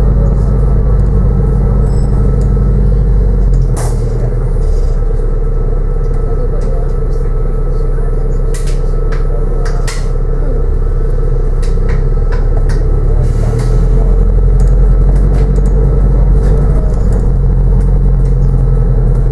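Inside a New Routemaster diesel-electric hybrid bus on the move: a steady low engine drone and ride rumble. The engine note changes a few seconds in and grows louder again about two-thirds of the way through, with a few sharp knocks and rattles from the bus body.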